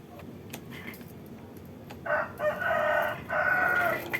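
A rooster crowing: one crow in three linked parts, starting about halfway in, after a few faint clicks.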